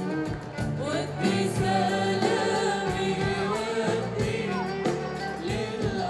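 A woman singing an Arabic song live with a band, her voice sliding and wavering over the accompaniment and a steady beat.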